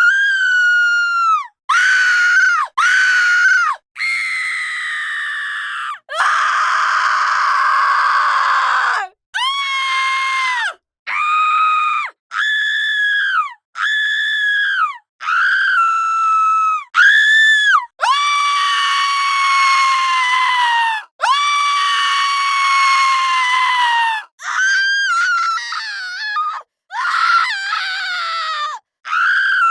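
Women's high-pitched screams, well over a dozen, cut one after another with short silent gaps; each lasts about one to three seconds and drops in pitch at its end. One, from about six to nine seconds in, is hoarse and raspy.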